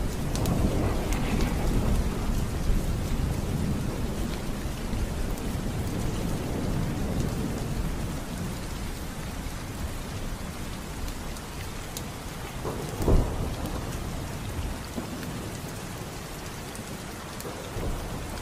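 Heavy rain pouring onto a flooded street, a steady hiss over a low rumble, with one sudden loud thump about thirteen seconds in.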